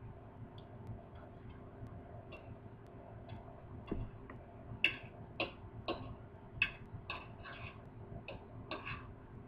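Metal fork and knife clicking and scraping against a ceramic platter while cutting and picking up food: a few faint ticks at first, then from about halfway through a run of sharp clicks about twice a second, some drawn out into short scrapes.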